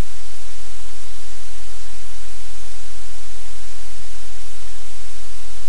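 Steady, loud hiss with a constant low hum underneath.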